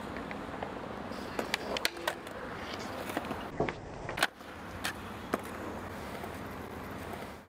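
Skateboard wheels rolling on concrete, with a grind along the bowl's coping and sharp clacks of the board popping and landing. The loudest snap comes about four seconds in.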